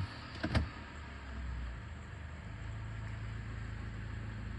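Mitsubishi 4B11 2.0-litre inline-four running cold with one piston knocking, the sign of a scored cylinder wall. Two short clicks in the first half second.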